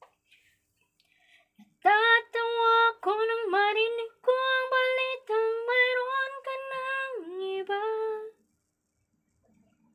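A woman singing alone with no accompaniment: a phrase of several long held notes that begins about two seconds in. Near the end the pitch drops to a lower closing note.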